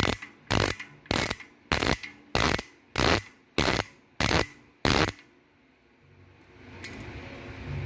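Bicycle rear hub's freehub with five pawls and springs, completely dry with no grease, clicking loudly as it freewheels, in about nine short bursts roughly every 0.6 s that stop about five seconds in. The lack of grease is what makes it this loud.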